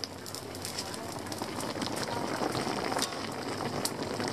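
Tilapia pindang broth boiling in a wide aluminium wok over a wood fire: a dense, steady bubbling with many small crackles.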